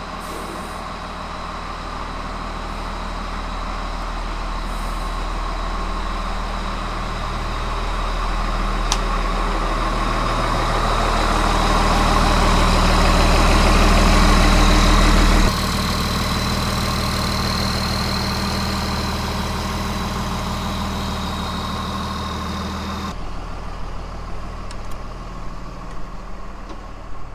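Cummins diesel engine of a diesel-pusher motorhome running as the coach rolls slowly past, with a steady high whine over it. It grows louder for the first half as the rear-mounted engine draws near, then cuts abruptly to a quieter, steady running sound.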